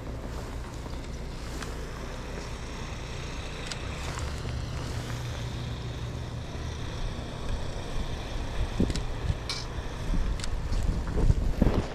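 Steady low rumble of wind and city traffic in a snowstorm, with a few louder thumps near the end.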